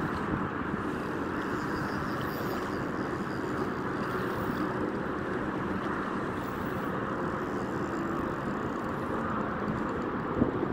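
Steady drone of a jet ski's engine running out on the water.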